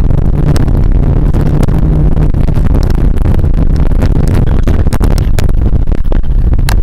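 VAZ 2114 hatchback heard from inside the cabin, driving hard over a rough dirt track: loud road rumble under a steady engine note, with frequent sharp knocks and clicks from bumps and gravel striking the body, more of them in the second half.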